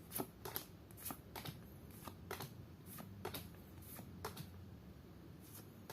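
Pokémon trading cards being flicked through one at a time, each card giving a faint, sharp snap, about a dozen in quick, irregular succession.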